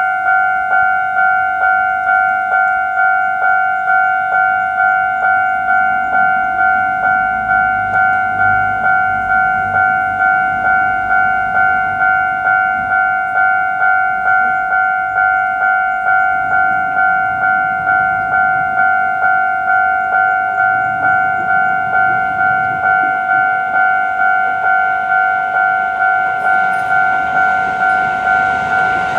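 Japanese level-crossing warning bell ringing its steady, evenly repeated "kan-kan" chime. An approaching train starts to be heard under it near the end.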